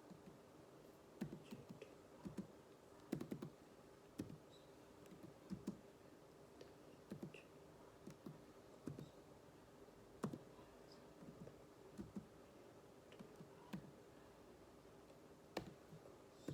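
Computer keyboard keystrokes, sharp irregular clicks in small clusters, over a steady low hum.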